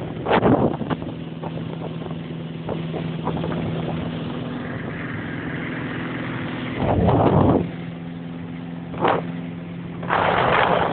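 Ski boat's 308 inboard V8 running steadily with an even engine hum, broken several times by loud bursts of noise, the longest about seven seconds in and again near the end.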